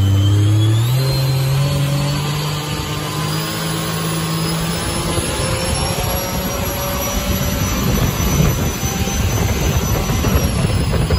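A small jet boat's supercharged Rotax 300-horsepower engine runs at speed with the rush of its jet and spray. The engine pitch dips briefly near the start, then climbs back and holds steady. After about five seconds a coarse rush of spray and wind grows louder over the engine tone.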